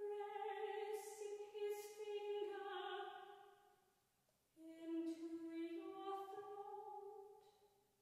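A soprano singing two unaccompanied phrases, with a short break about four seconds in; the second phrase starts lower and rises.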